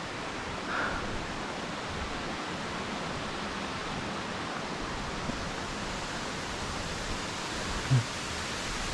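Steady rushing of a waterfall, an even noise with no change in level. A brief voice sound comes just before the end.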